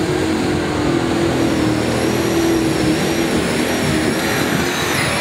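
Off-road 4x4's engine held at high revs as it churns through a muddy water hole, with mud and water splashing and spraying throughout.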